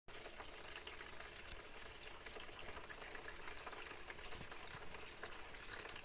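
Faint, steady trickling and splashing of water from a small tabletop waterfall aquarium.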